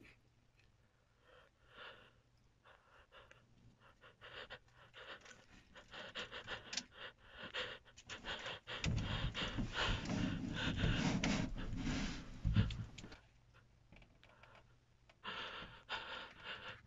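A person panting with heavy, ragged breaths, mixed with rustling handling noise. It starts faint, is loudest about nine to thirteen seconds in, stops for a couple of seconds, then picks up faintly again near the end.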